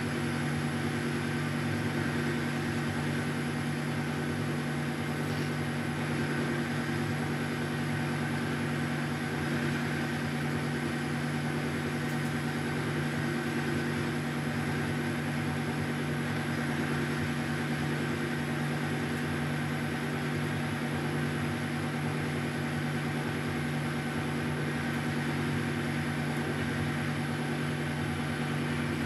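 1972 Weiler Matador SV lathe running steadily at 600 rpm with a carbide insert under power feed, taking a 0.75 mm deep cut along the outer diameter of a 22 mm bar. It makes an even machine hum with a few constant tones.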